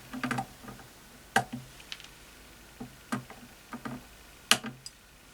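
Scattered light clicks and taps from handling tools and parts during soldering work on a motherboard, about a dozen at irregular intervals, several with a brief low hum.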